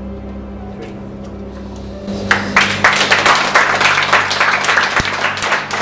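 Soft background music, then about two seconds in a burst of applause and hand-clapping breaks out and carries on over the music.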